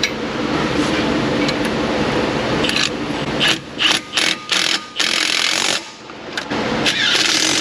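Hand tool scraping and rubbing on brake hardware: a stretch of continuous rasping, then about half a dozen short scraping strokes a little past the middle, and more rasping near the end.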